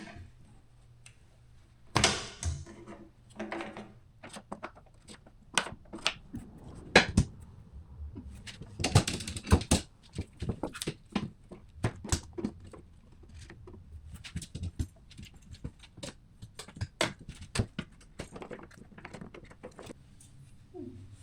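An irregular series of sharp clicks and knocks, some close together and a few louder ones scattered through.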